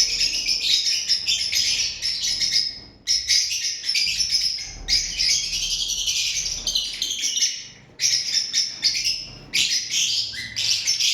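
Lovebirds chattering in fast, high-pitched chirps, in long runs broken by brief pauses about three and eight seconds in.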